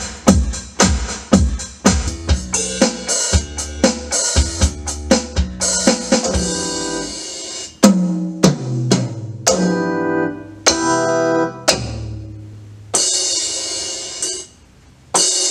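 An Alesis Command mesh electronic drum kit played through its module: a fast run of drum hits, then slower hits that ring out as pitched notes over held low bass tones, with a pause and one last hit near the end.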